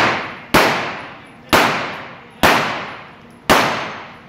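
Handgun shots, four of them about a second apart, each followed by a long echoing ring that dies away before the next.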